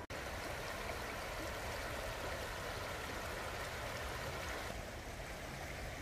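Shallow creek rippling over a stony bed: a steady rush of running water that turns a little softer just before five seconds in.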